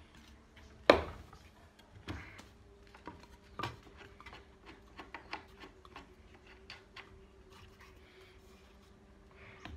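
Wooden board knocking against a Kreg K4 pocket-hole jig while the jig's plastic body and clamp click as the board is positioned and clamped. One sharp knock comes about a second in, followed by a scattered run of lighter clicks and taps.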